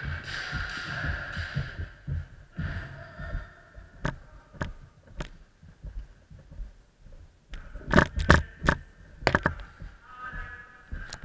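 A long, drawn-out kendo shout (kiai) in the first two seconds, with a shorter one soon after. Then a run of sharp knocks, loudest as a quick cluster of four about eight seconds in.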